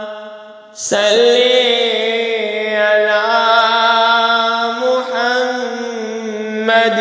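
Background music of a chanting voice holding long, wavering notes; the sound dips and a new phrase starts about a second in, with further phrases beginning later.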